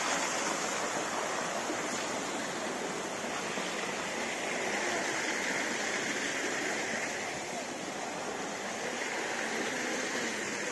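Steady rush of running water from a stream or water channel, an even, continuous sound with no breaks.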